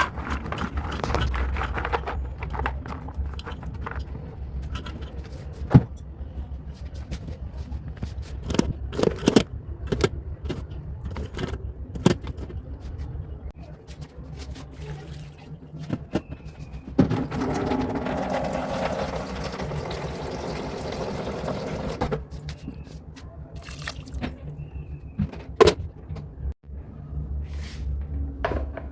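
Kitchen handling sounds: scattered clicks and knocks of a pot, lid and utensils, with a low steady hum underneath. About five seconds of water runs or pours into the cooking pot a little past the middle.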